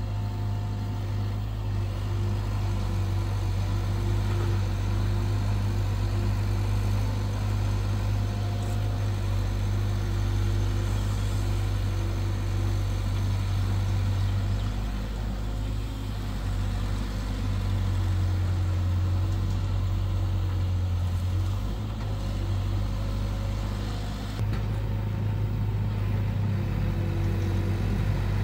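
Diesel engine of a long-reach Hitachi ZX120 excavator running steadily with a deep hum as the boom digs mud, its tone shifting a little about halfway through and again near the end.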